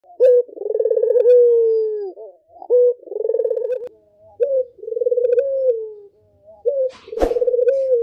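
White Barbary dove (puter) cooing: four rolling coos, each a short rising note followed by a long, slightly falling purring coo. A sharp click about seven seconds in.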